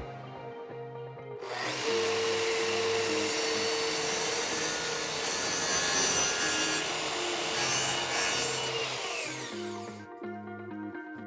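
A power tool cutting wood runs for about eight seconds, starting a second and a half in, then winds down, with background music under it.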